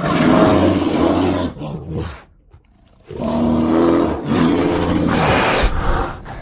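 Big cat roaring: two long roars with a pause of about a second between them.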